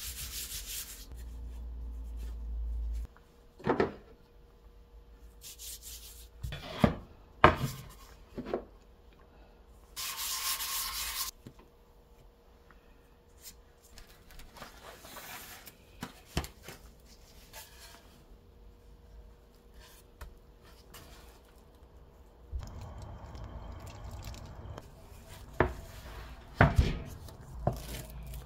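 A gloved hand rubbing flour over rolled-out croissant dough, with scattered knocks and bumps of handling on the work surface and a short rustle about ten seconds in.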